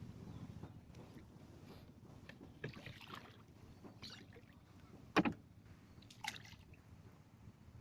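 Paddling a rowboat: scattered splashes and knocks of paddles in the water and against the hull over a low steady rumble, with the sharpest knock about five seconds in.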